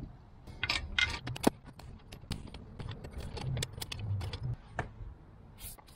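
Lug nuts clinking and clicking against the studs and steel wheel as they are threaded on by hand and then turned with a four-way cross lug wrench. A quick run of sharp metallic clicks, loudest about a second and a half in, with a few dull knocks after that.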